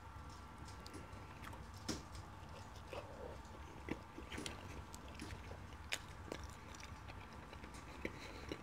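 Close-miked chewing of curry chicken wrapped in flatbread: soft, wet mouth sounds with scattered small clicks.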